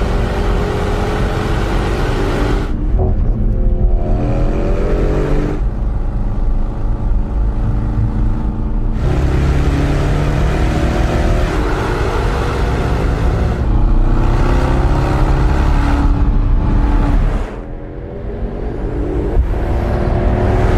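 Mercedes-AMG GT 63 Pro's twin-turbo V8 accelerating hard, its exhaust note climbing in pitch over several pulls with short breaks between them. Near the end it drops quieter, then builds again.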